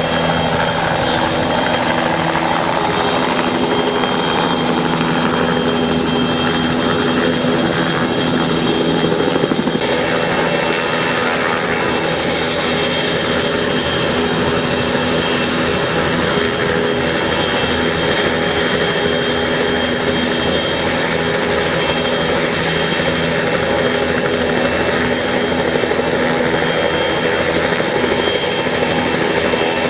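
Crop-spraying aircraft flying low, its engine running with a steady, loud drone.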